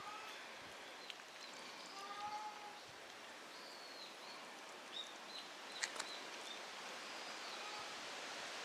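Faint outdoor hiss with scattered short, high-pitched chirping animal calls and a brief lower call about two seconds in, plus a couple of sharp clicks about six seconds in.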